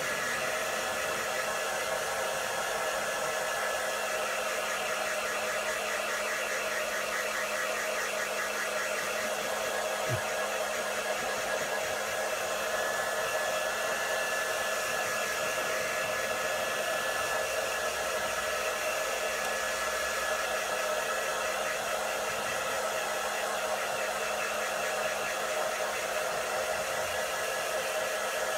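Handheld hair dryer running steadily on one setting: a constant rush of blown air with a steady motor whine.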